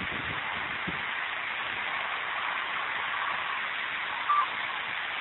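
Steady background hiss on a phone recording, with a brief high single-pitched tone about four seconds in.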